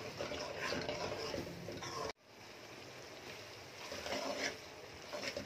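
Metal ladle stirring and scraping through chicken karahi masala in a steel pan, over a steady hiss of the masala frying in oil. The sound cuts out abruptly about two seconds in and returns quieter.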